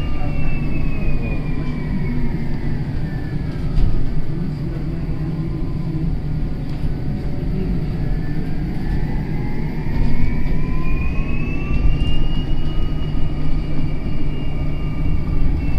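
Bus drivetrain whine, with several pitches together over a steady low rumble, that sounds like a jet aircraft. The whine falls over the first five seconds or so as the bus slows, then rises again as it speeds up, holds high, and eases slightly near the end.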